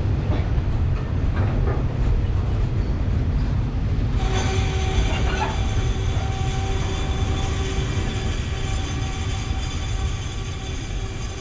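Container freight train's wagons rolling past on the track, a steady heavy low rumble. About four seconds in, steady high ringing tones join over the rumble and carry on.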